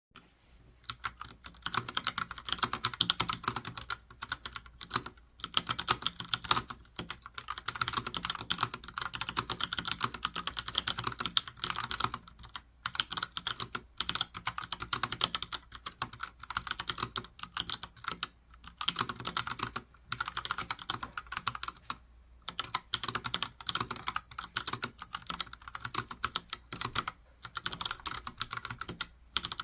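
Typing on a Logitech POP Keys mechanical keyboard with tactile TTC Brown switches: rapid clacking keystrokes in runs of a few seconds, broken by short pauses.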